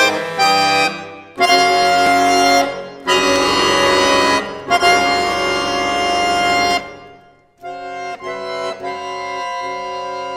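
Solo accordion playing dense, dissonant chords: a few short chords, then loud held clusters of a second or two each with brief breaks. About seven seconds in it fades away and comes back with quieter sustained chords.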